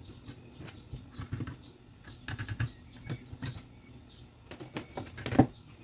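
Small clicks, taps and rustles of hands handling the parts and wires of a disassembled plastic Bluetooth speaker and a small metal tool on a table, with a sharper knock near the end.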